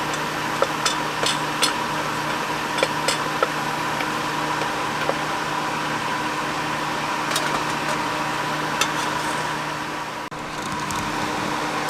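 A steady electric fan hum, with a few light clicks and taps over it.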